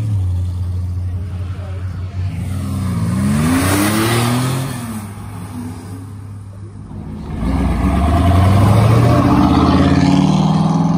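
Car engines revving: one climbs and falls in pitch a couple of seconds in, then a louder, deeper engine note comes in about seven and a half seconds in and holds.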